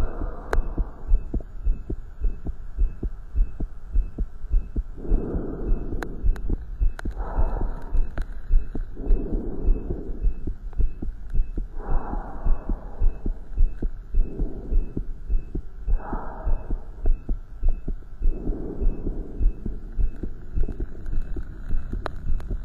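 Human heart beating, heard through a stethoscope during exercise: a steady run of low thumps. A louder rushing noise swells and fades every few seconds.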